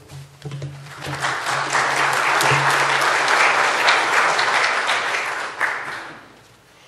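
Audience applauding, swelling over the first couple of seconds and dying away about six seconds in.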